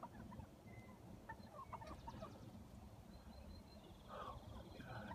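Wild turkeys calling faintly in short, scattered clucks, with a denser rattling call about four seconds in.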